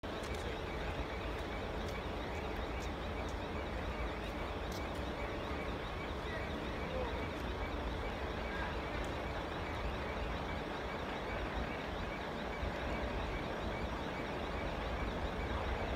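Steady outdoor background noise: a low rumble of distant engines and road traffic with a few faint clicks, growing slightly louder near the end.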